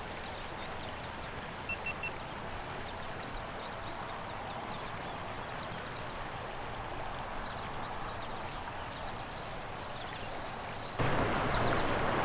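Steady rush of a flowing trout stream with faint, short high chirps over it. About eleven seconds in it cuts to a louder rush with a steady high whine.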